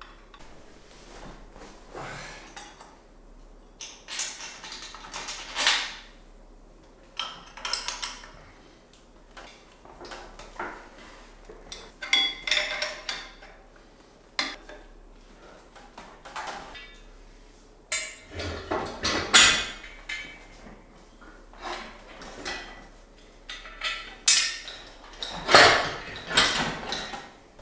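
Steel engine-stand mounting plate, bolts and hand tools clinking and clanking at irregular intervals while the plate is fitted and bolted to an engine, with a few louder metal knocks near the end.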